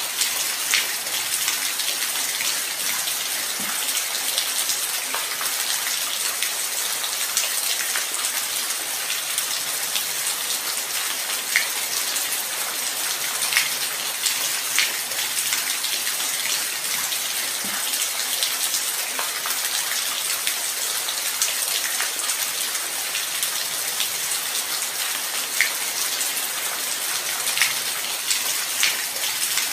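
Light rain falling steadily: an even, high hiss with scattered individual drops ticking through it.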